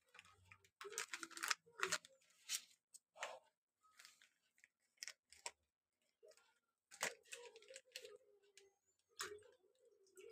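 Plastic packet crinkling as it is handled and opened by hand: a run of irregular crackles and snaps.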